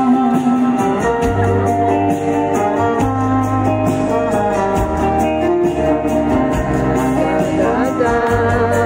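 A live pop band plays an instrumental passage of the song over the concert sound system, with sustained bass notes and a steady beat.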